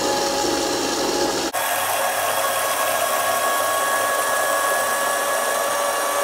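Suavinex baby food processor's blender motor running steadily, puréeing soup for a baby. About a second and a half in it breaks off for an instant and carries on at a higher pitch.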